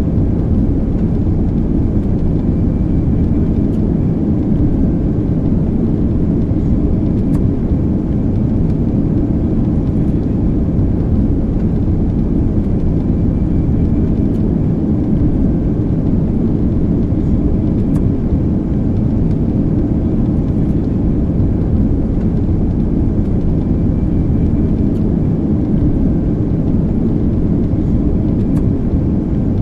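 Airplane in flight, heard from inside the cabin: a steady, loud drone of engines and rushing air that keeps an even level, with a faint hum of steady tones in it.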